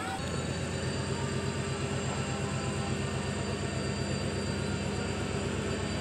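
WDP4 diesel-electric locomotive approaching, its EMD two-stroke V16 engine giving a steady, rapidly pulsing low throb with a high whine over it, growing slightly louder.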